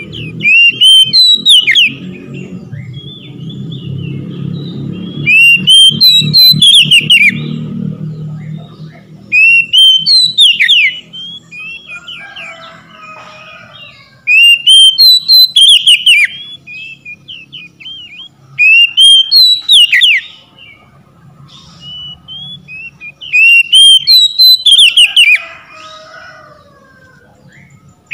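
Oriental magpie-robin (kacer) singing: six loud phrases of rising whistled notes and quick trills, each lasting one to two seconds, coming about every four to five seconds.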